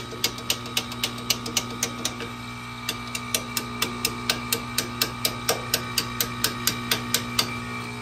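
Rapid metal-on-metal tapping, about four taps a second, on the brass body of a heat pump's stuck reversing valve, with a short pause near the middle, over the steady hum of the running compressor. No whoosh of the valve shifting follows: the valve stays stuck, which the technician takes for a dead reversing valve.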